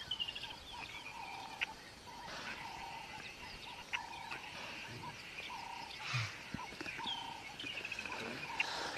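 Wild birds calling: short whistled notes repeated every second or so, mixed with quick descending trills and single sharp chirps.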